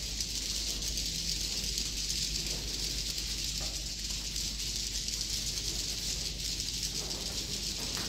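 Edible-nest swiftlets chirping and clicking: a steady, dense high twittering that fills the swiftlet house, with a steady low hum underneath.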